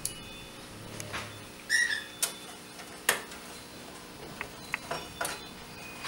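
Magnetic screwdriver and small screws clicking and tapping against the motherboard standoffs and the thin metal PC case while the motherboard is screwed down: about eight short, sharp, irregular ticks, the loudest a brief ringing clink just before two seconds in.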